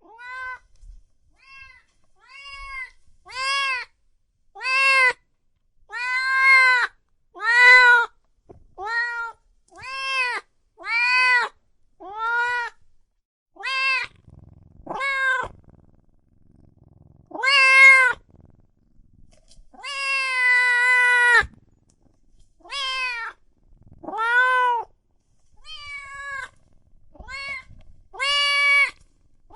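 A cat meowing over and over, about twenty separate meows roughly a second apart, each rising and then falling in pitch. One longer, drawn-out meow comes about two-thirds of the way through.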